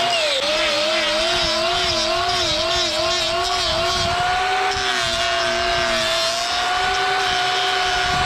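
Angle grinder with a hoof-trimming disc running at high speed and cutting cow hoof horn, its whine dipping and recovering in pitch as the disc bites into the hoof.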